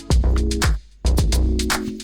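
Background music with a steady beat: drum hits over a bass line, with a brief drop-out about a second in.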